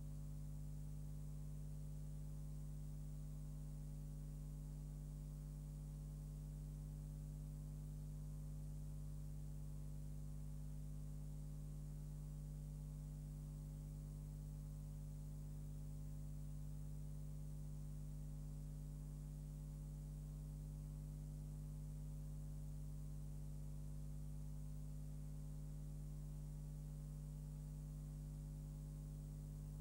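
Steady electrical mains hum, a low buzz of several tones over a faint hiss, with no other sound.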